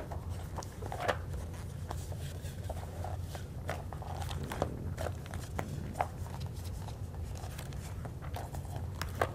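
Pages of a glossy magazine being flipped quickly one after another: irregular papery rustles and flaps, over a low steady hum.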